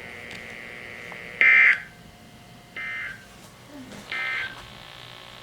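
Emergency Alert System End-of-Message code from a NOAA Weather Radio broadcast: three short bursts of buzzy digital data tones about 1.3 s apart, the first the loudest. They mark the end of the severe thunderstorm warning.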